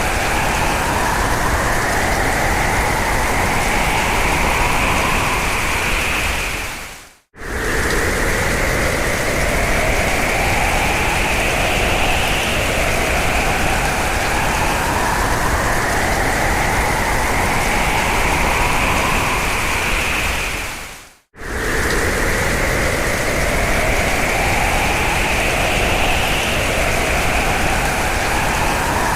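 Hurricane-force storm wind, loud and steady, with a howling whistle that rises slowly in pitch over several seconds and comes round again and again. Twice, about seven and about twenty-one seconds in, the sound fades away to a moment of silence and then starts again abruptly.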